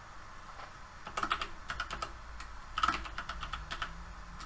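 Computer keyboard typing: a few quick bursts of keystrokes, starting about a second in.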